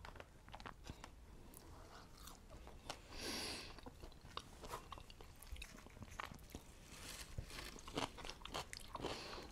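Faint close-up chewing and biting of fried fast food, with small crunches and mouth clicks, and a brief soft hiss about three seconds in.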